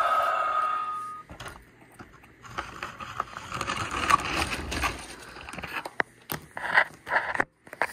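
A held vocal sound with a voice-like pitch ends about a second in. Then come rustling, scraping and a run of light clicks and knocks as plastic toy dinosaurs are handled and moved about on a tile floor close to the microphone.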